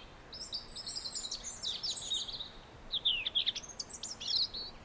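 Birds singing in a nature recording: a busy run of quick, high chirps and down-slurred notes, in two flurries with a short lull a little past the middle, over faint background hiss.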